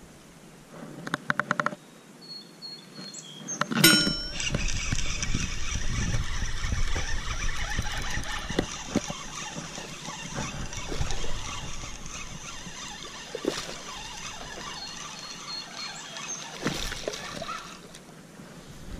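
Sienna spinning reel cranked steadily while a hooked bass is reeled in, a whirring with low rumble and handling bumps, after a sudden loud sound about four seconds in.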